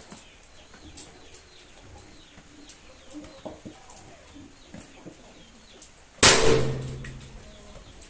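Faint small clicks, then about six seconds in a sudden loud hissing burst that dies away over about a second.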